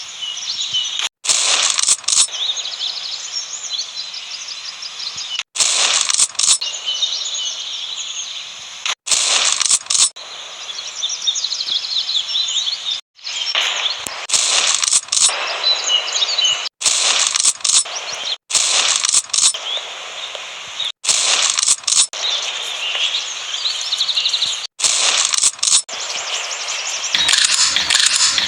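Mossberg 500 pump-action shotgun sound effects: sharp metallic bursts, mostly in pairs about a second apart, repeating every few seconds. Birds chirp in the background.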